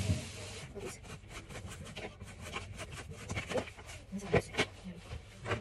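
A kitchen knife cutting and scraping at the counter: a run of irregular light clicks and scrapes that grow louder and busier after about three seconds.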